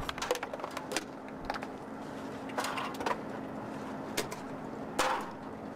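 Light clicks and rustles of a pilot's flight helmet and its fittings being handled in gloved hands, over a steady low hum; a sharper click comes about five seconds in.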